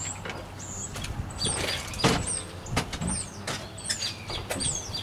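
Small birds chirping in short, high calls, some falling in pitch, with a few scattered clicks and knocks.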